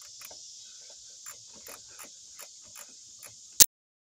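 Crickets chirping in a steady high trill, with about seven soft knocks and rubs as a rubber radiator hose is pushed into place by hand. A sharp click about three and a half seconds in, the loudest sound, then all sound cuts off abruptly.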